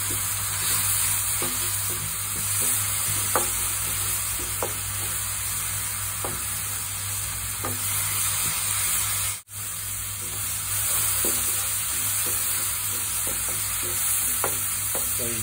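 Chopped mushroom, tomato and spice mixture sizzling in a nonstick frying pan while a wooden spatula stirs it, with short scrapes and taps of the spatula against the pan every second or two. The sound drops out for an instant about nine seconds in.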